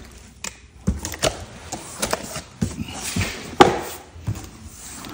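Cardboard box flaps and foam packing being handled as a box is opened: irregular scraping and rubbing with a string of light knocks, the loudest knock about three and a half seconds in.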